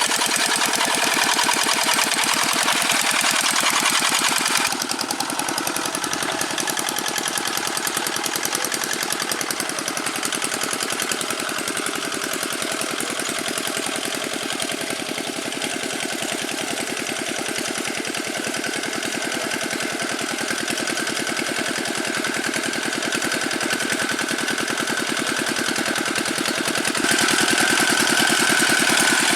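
The old Dongfeng single-cylinder diesel engine of a G600 hand tractor running steadily at working speed, with a fast, even firing beat. The sound drops a little about five seconds in and gets louder again near the end.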